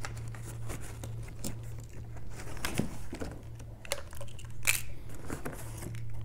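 Bubble wrap and cardboard packaging rustling and crinkling as parts are handled and pulled out of a box, with scattered light clicks and knocks, over a steady low hum.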